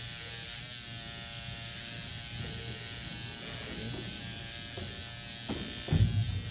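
Steady electrical buzz and hum from a sound system's microphone and speakers. A few low thumps come near the end.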